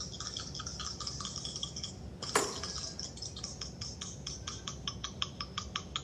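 A die being rattled and rolled: a run of quick, ringing clicks, about five a second, with one sharper knock a little over two seconds in.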